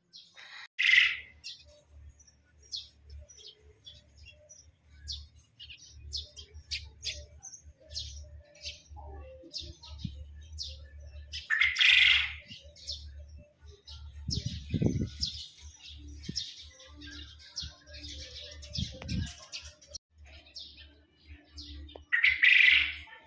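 Small birds chirping and twittering in the background, with three short, louder noisy bursts about a second in, about halfway and near the end.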